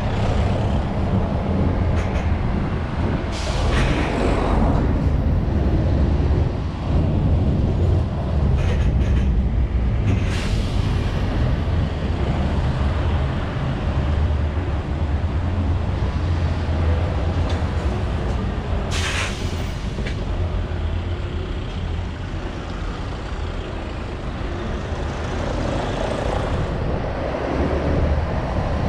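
Scania S650's V8 diesel engine running at low speed as the lorry creeps along, a steady low drone with road noise, broken by three short hisses of air from the truck's brakes.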